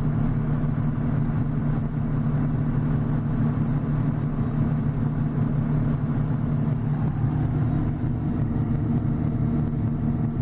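John Deere 6620 combine running steadily as it harvests corn and unloads grain into a semi: a constant low engine and machinery drone, with a slight change in tone about seven seconds in.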